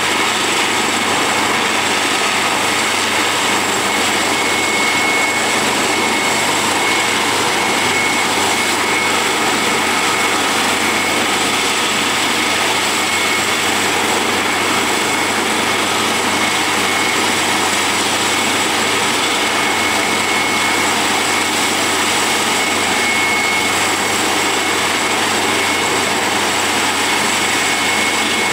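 AgustaWestland AW139 helicopter's twin turboshaft engines running steadily: a constant turbine whine, with a few high steady tones over a broad rush of noise.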